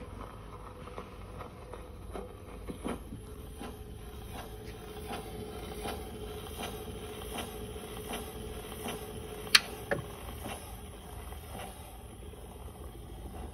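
Home-made gramophone's soundbox with a bamboo needle running in the run-out groove of a 78 rpm record after the music has ended: a click about every three-quarters of a second, once per turn of the record, over surface hiss. A faint steady hum comes in midway, and one much louder sharp click sounds about nine and a half seconds in.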